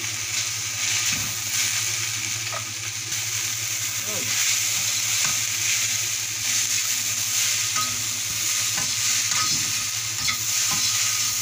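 Vegetable chowmein noodles with soy sauce sizzling as they are stir-fried in a hot wok, a metal spatula scraping and clicking against the pan.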